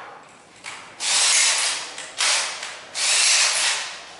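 Cordless drill's keyless chuck being loosened and tightened to change bits: several short bursts of ratcheting noise, the longest about a second each, with no steady motor whine.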